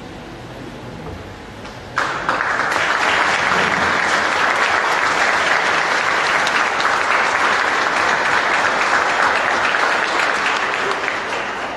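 Audience applauding, starting suddenly about two seconds in and dying away near the end.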